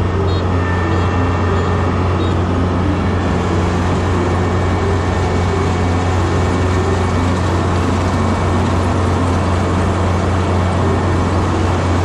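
Kubota combine harvester running steadily at work, a loud constant engine drone with machinery noise over it.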